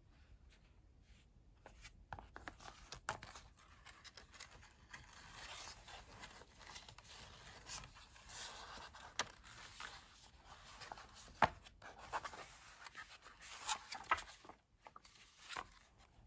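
Paper notebook inserts being leafed through and rubbed inside a leather Traveler's Notebook cover: a rustling, scratchy paper sound with a few sharp taps, starting about two seconds in.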